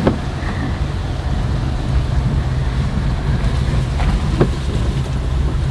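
A car driving along a rural road, heard from inside the cabin: a steady low rumble of engine and tyres, with two faint ticks about four seconds in.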